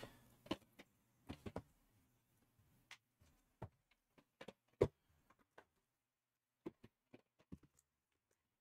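Faint, scattered light taps and knocks of cardboard hobby boxes being moved about by hand. The loudest is a single knock about five seconds in.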